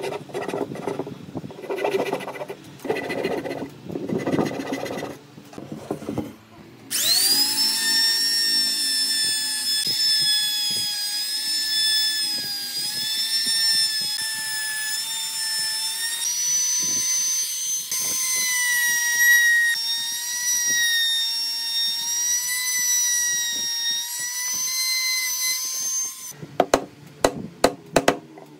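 Hand saw strokes rasping into the wood of a frame. About seven seconds in, a handheld trim router starts with a quick rising whine and runs as a steady high whine that wavers in pitch as it cuts a shallow hinge recess. It stops a couple of seconds before the end, and sharp chisel taps follow as the recess is cleaned out.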